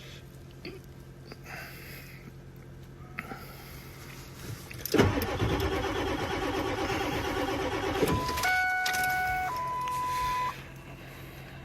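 Ford 7.3 Power Stroke diesel being cranked by its starter for about three seconds in the cold without firing: the engine is not starting. As the cranking stops, a steady electronic tone sounds for about two seconds and cuts off.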